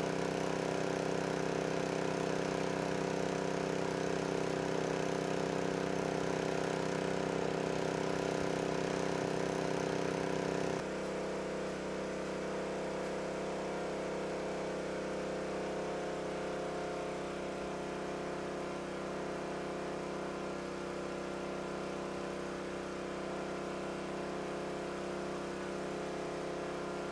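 Small engine-driven water pump running steadily at a constant speed while pumping out a flooded basement. About eleven seconds in its tone shifts and it gets slightly quieter.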